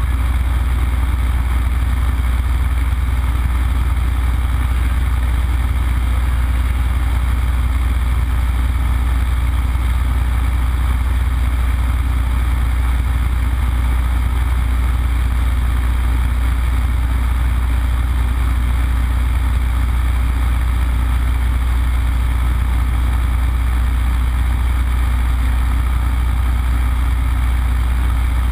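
Yak-52's nine-cylinder Vedeneyev M-14P radial engine and propeller running steadily in flight, heard from inside the cockpit as a deep, even drone under a steady hiss of air.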